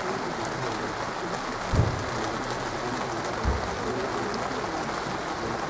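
Steady rain falling on open umbrellas and wet pavement, an even hiss. Two short, dull low thumps stand out, one just under two seconds in and one about three and a half seconds in.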